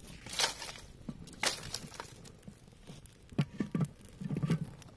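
Sticks in a small wood fire rustling and crackling in short bursts as they are pushed in. About three and a half seconds in, a heavy blackened cooking pot is set down on the fire stones with a few low knocks and scrapes.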